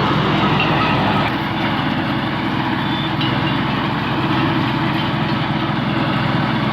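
Bulldozer's heavy diesel engine running steadily.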